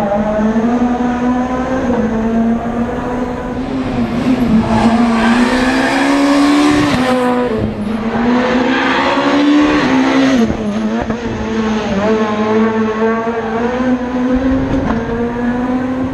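Rally car engine under hard acceleration on a stage. Its pitch climbs with the revs and drops sharply at each gear change, clearly about 7 and 10 seconds in.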